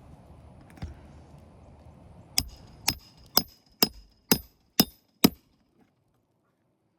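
Roofing hammer striking a steel roof snake to drive a roofing nail under a shingle tab: seven sharp, ringing metal-on-metal blows about half a second apart, after a single lighter knock about a second in.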